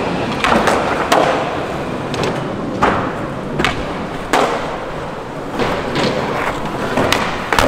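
Skateboards rolling on a hard surface, with a string of sharp impacts from tails popping and boards landing and slapping down, about eight in all at uneven gaps.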